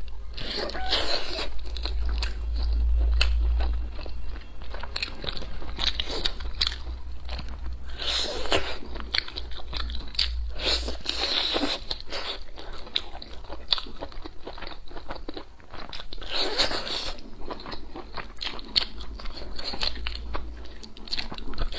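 A person biting and chewing braised pork ribs, gnawing the meat off the bone: a steady run of short bites and chewing clicks, with louder bites about a third of the way in, midway and again about three quarters of the way through.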